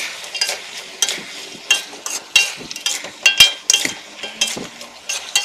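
Metal slotted spatula scraping and clinking against a metal wok as chicken pieces and lotus root slices are stirred and tossed. There are about a dozen irregular ringing clinks over a low frying sizzle, the loudest a little past halfway.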